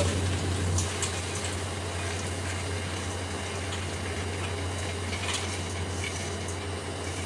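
Fried peanuts pouring from a pot into a paper-lined bowl: a steady rattling pour with a few small clicks of nuts and pot against the bowl, over a constant low hum.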